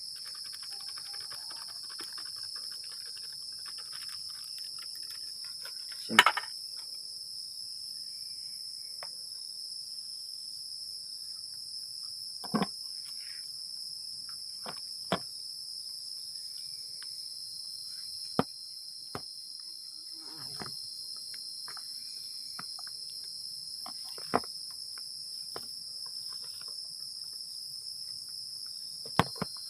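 A steady high-pitched chorus of crickets or other night insects, with a few sharp knocks and clatters (about six) spread through it, the loudest about six seconds in.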